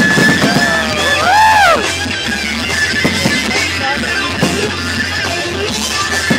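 Rock music with guitar, laid over the footage, with a few sharp hits in the beat.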